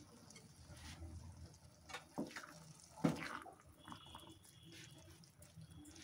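Faint liquid sloshing of milk and grated carrots in a large cooking pan, with a few light knocks, the loudest about three seconds in.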